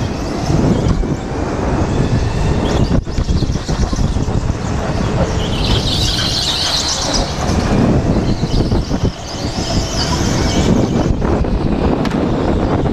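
Go-kart at racing speed heard from a helmet-mounted action camera: a steady rumble of wind and tyre noise, with the tyres squealing for about two seconds around six seconds in as the kart corners.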